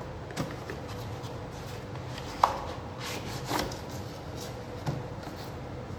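Pen packaging being handled in an unboxing: a few light knocks and taps of the box, the sharpest about two and a half seconds in, with some rustling around the middle, over a faint steady hum.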